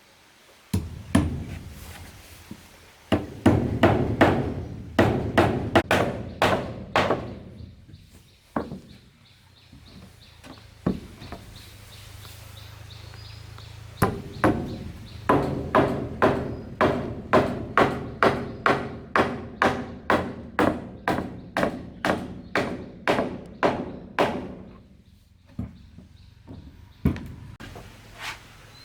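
Repeated hammer blows on wood: a short flurry of strikes, then a long, even run at about two blows a second.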